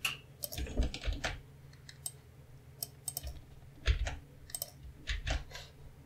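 Irregular clicks of a computer keyboard and mouse.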